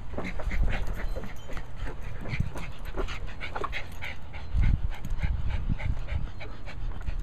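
Cairn terrier panting quickly, short breaths about three a second, with a few dull low thumps near the middle.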